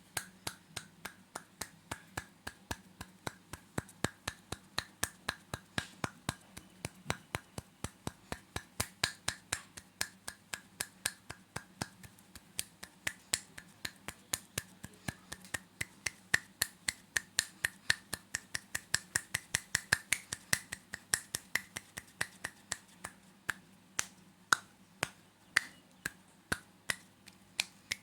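A long, fairly even run of sharp clicks or snaps, about three a second, over a faint steady hum.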